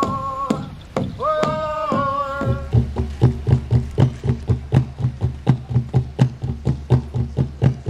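Long held sung notes with drumbeats, which cut off about two and a half seconds in. Then a large upright Aztec drum keeps a steady, even beat of about three to four strokes a second for the dancers.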